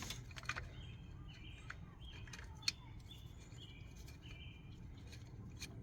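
Faint, scattered light clicks and taps of metal parts and tools being handled while timing chain components are fitted, the sharpest about two and a half seconds in, with faint short bird chirps in the background.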